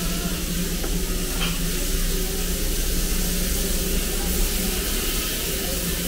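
Steady hiss of steam with a low hum underneath, from the Darjeeling Himalayan Railway toy train's steam locomotive standing and letting off steam.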